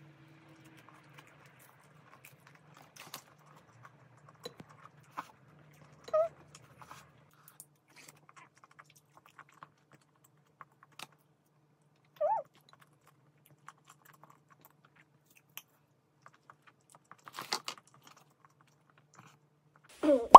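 A person eating fried Korean snack food with chopsticks: quiet chewing and biting, with scattered small clicks and taps, two short murmurs of the voice about six and twelve seconds in, and a faint steady low hum underneath.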